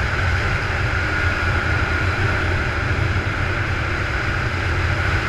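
Yamaha Blaster 200's single-cylinder two-stroke engine running at a steady cruising speed, with wind noise on the helmet camera.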